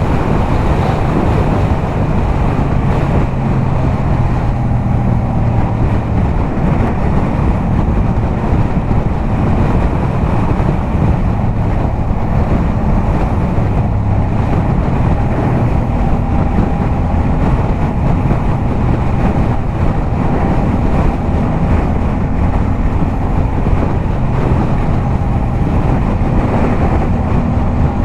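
Yamaha MT-07's parallel-twin engine running steadily at highway cruising speed through a LeoVince aftermarket exhaust, with small shifts in engine speed in the second half. Wind rushes over the microphone throughout.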